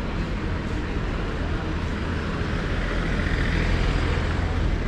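Street traffic: a steady low rumble, with a passing vehicle swelling louder about three seconds in.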